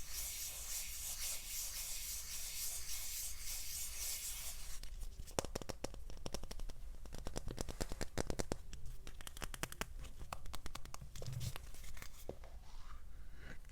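Close-miked rubbing or scratching on a surface for about five seconds, then a quick run of many light clicks and taps.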